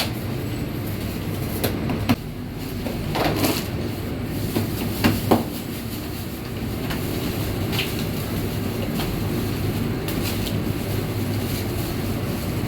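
Bakery machinery running with a steady low mechanical hum, with scattered clanks and knocks every second or two.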